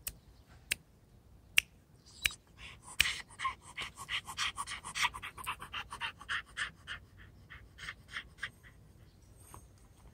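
Puppy panting fast, short breaths about five a second that start about three seconds in and die away after about eight seconds. A few sharp clicks come in the first two seconds.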